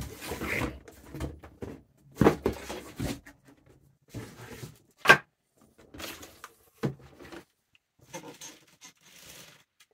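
Cardboard box and packaging tray being handled: scattered knocks and rustles, the sharpest about five seconds in.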